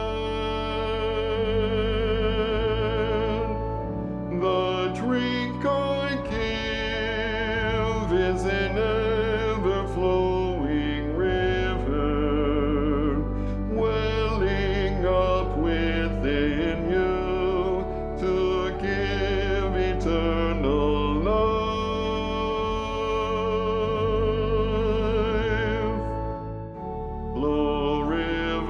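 A soprano voice singing a hymn melody with vibrato over sustained low accompaniment chords.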